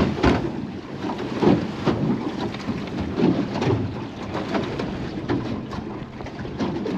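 Wind rushing over the microphone and water slapping against a small boat's hull, coming in irregular gusts and surges.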